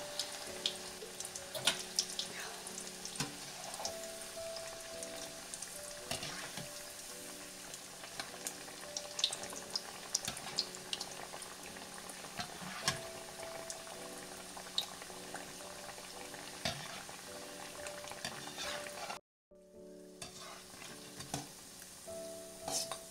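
Bread samosas deep-frying in hot oil: a steady sizzle full of small crackling pops. The sound drops out briefly for under a second near the end.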